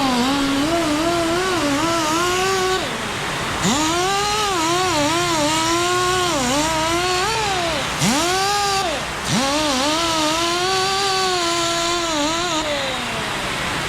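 Power tool driving a wire wheel, scrubbing and polishing metal. The motor whine sags and wavers as the brush is pressed on, and a high scratchy hiss rides over it. The tool stops and spins back up three times, about 4, 8 and 9 seconds in.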